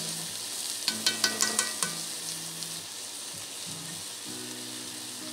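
Onions, garlic and tomatoes sizzling in a hot soup pot, a steady hiss. About a second in comes a quick run of clicking strokes as a spoon scrapes tomato paste into the pot.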